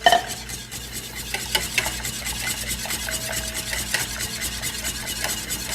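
A utensil stirring a hot cream-and-egg-yolk mixture in a pot, quick rhythmic scraping strokes, several a second, kept up without a break so the yolks don't scramble.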